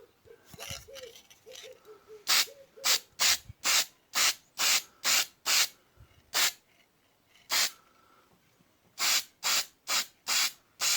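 Aerosol spray paint can sprayed in about fifteen short hissing bursts, each under half a second and about two a second, with a couple of longer pauses partway through: gloss black paint being put on an engine exhaust pipe.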